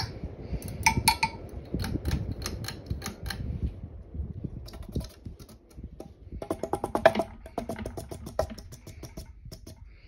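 Harbor Breeze Palm Breeze ceiling fan running on high and wobbling badly: a low rumble under fast, even clicking rattles, about five a second. The clicking breaks off briefly about four seconds in, then picks up again.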